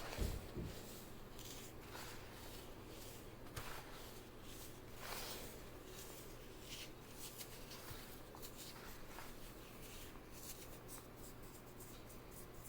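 Dry floral foam dusted with cornstarch being squeezed and crushed by hand, giving a series of soft, faint crunching and squeaking strokes that come quicker in the last few seconds.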